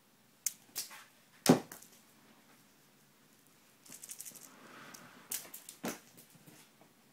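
Scattered sharp taps and knocks from a Bengal cat playing fetch with a small toy. The loudest knock comes about a second and a half in, and a quick rattle of clicks with a light rustle follows a few seconds later.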